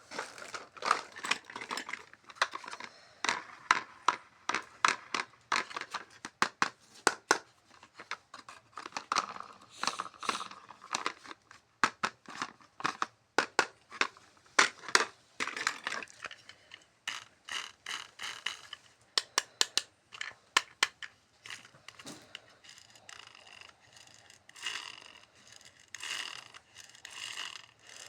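Toy packaging being handled and opened: plastic and cardboard crinkling and tearing, with many sharp clicks and rustles, and squeakier scrapes in the second half.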